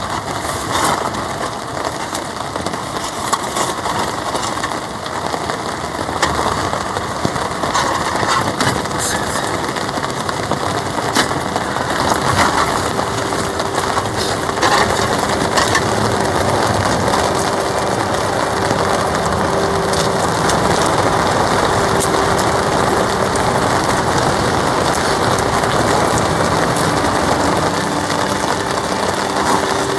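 Heavy rain drumming on a polycotton (TC) tarp, a dense steady hiss with scattered ticks, growing a little louder about twelve seconds in. A steady hum comes and goes over it from then on.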